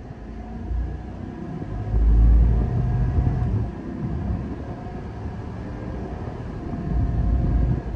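A 2024 Chevy 2500HD's 6.6-litre gas V8 under hard acceleration, heard from inside the cab as a deep engine rumble with road noise while the truck pulls from about 20 to over 50 mph. It is loudest about two seconds in and again near the end.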